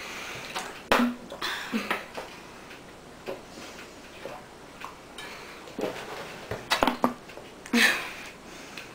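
Two people chugging water from plastic bottles: scattered sharp clicks and crackles of the bottles and short breathy gasps between swallows, loudest near the end.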